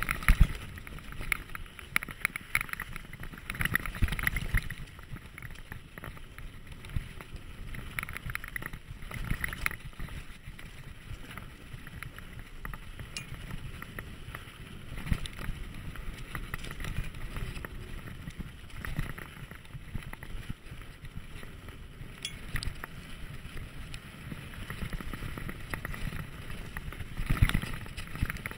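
Dartmoor Hornet mountain bike riding fast down a loose dirt trail, heard from a camera mounted on the bike: continuous tyre rumble over the dirt with the bike knocking and rattling over bumps, heaviest in the first few seconds and again near the end.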